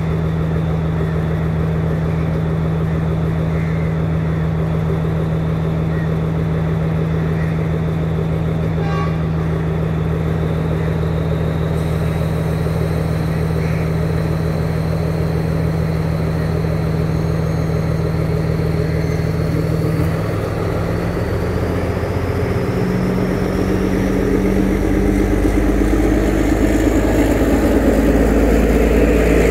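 Sri Lanka Railways S10 diesel multiple unit's engine running steadily at idle, then about twenty seconds in the engine note changes and grows louder as the train pulls away. A faint high whine rises slowly in pitch through the second half.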